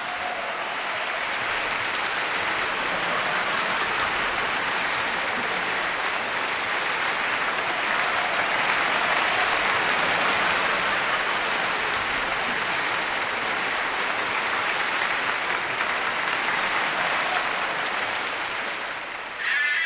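A large crowd applauding: a dense, steady clapping that swells slightly midway and eases a little near the end.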